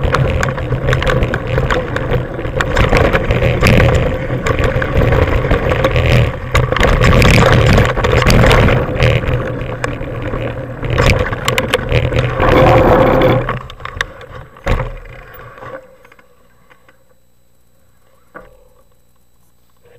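Mountain bike riding fast down a dirt trail, heard from a camera on the bike or rider: wind rushing over the microphone, tyre rumble and the bike rattling over bumps. About 14 s in it ends with a few knocks as the bike slows and stops, leaving a faint steady background and a single click near the end.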